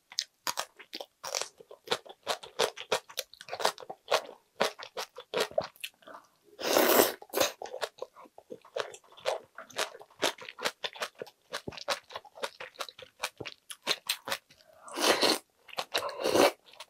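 Close-up crunching and chewing of aged mukeunji kimchi, a rapid run of wet crisp crunches. A louder breathy rush sounds about seven seconds in, and near the end two louder slurps as a wooden spoonful of rice in broth is taken into the mouth.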